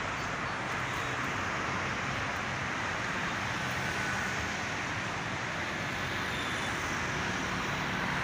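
Steady road traffic noise from cars passing on a busy multi-lane road, a continuous wash with no single vehicle standing out.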